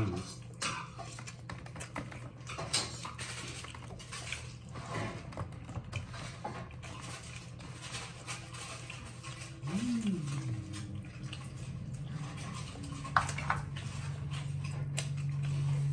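Close-up chewing and mouth sounds of someone eating pork ribs and bread: many small wet clicks and smacks scattered throughout. A brief low hum about ten seconds in, and a steady low hum near the end.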